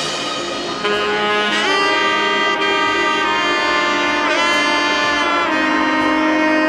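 Background music: an instrumental track with long held melodic notes, one of them sliding down and back up about four seconds in.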